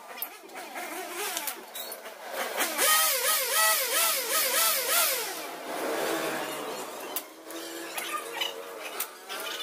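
Metal hand tools clinking as a Kawasaki KLX engine is dismantled. About three seconds in, a loud high-pitched sound that warbles up and down about three times a second takes over for some two and a half seconds.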